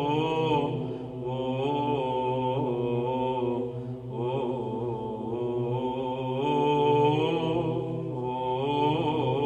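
Chanted vocal music: a voice sings a slow, winding melody over a steady, low, held drone.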